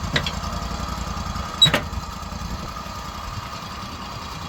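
Sawmill engine running steadily at idle, with a steady whine on top and two sharp knocks, the louder one about a second and a half in.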